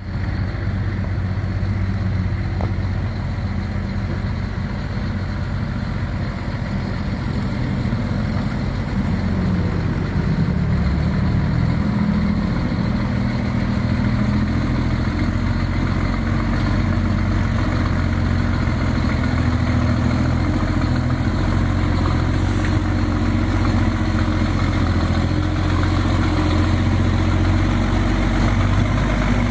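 Scania G420 truck's six-cylinder diesel engine rumbling steadily, growing a little louder about ten seconds in. A brief high hiss comes about two-thirds of the way through.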